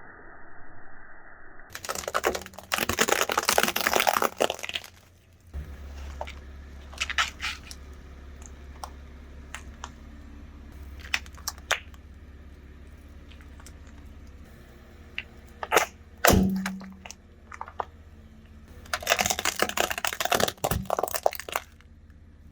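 Car tyre rolling over and crushing crunchy objects: two spells of dense crackling and snapping, scattered sharp cracks, and one loud crack about sixteen seconds in, over a low steady engine hum.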